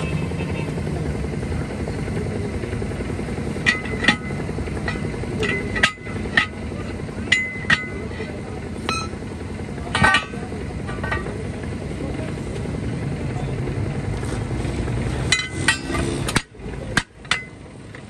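A steel split lock ring clinks and rings against a truck wheel's steel rim as it is worked into place: single clinks are scattered through, then a quicker run of sharp metal knocks comes near the end. Under it all a steady low engine drone runs, and it stops shortly before the end.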